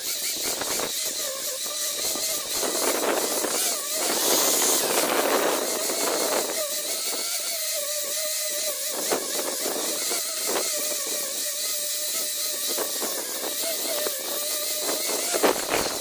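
Small angle grinder with a sanding disc running steadily while it sands a wooden beam: a high, even motor whine over a rough grinding hiss. The grinding gets heavier for a few seconds, about three to six seconds in.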